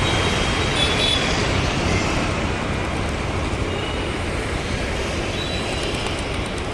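Steady road traffic noise heard while travelling along a road.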